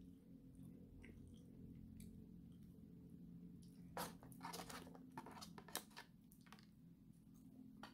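Chopsticks rummaging in a paper-lined takeaway box: a short spell of crinkling and clicking about four seconds in, over a faint steady room hum.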